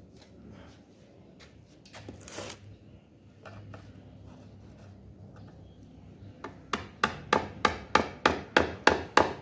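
Light handling knocks and scrapes, then a hammer tapping in a quick steady run of about ten sharp strikes, roughly three a second, over the last three seconds.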